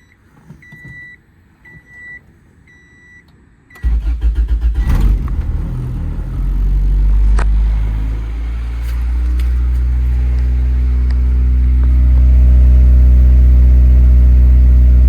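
A warning chime beeps steadily. Then the 1992 Honda Civic's four-cylinder engine cranks on the starter for about a second, catches and settles into a steady idle, growing a little louder near the end. It is running with a new water pump and timing belt, fitted to cure a whining noise.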